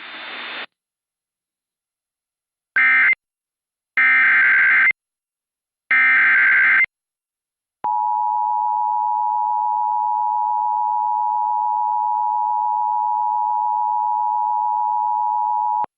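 Emergency Alert System signal: three short, raspy SAME data bursts about a second apart, then the two-tone attention signal, a steady dual tone held for about eight seconds. Together they open a new weather warning.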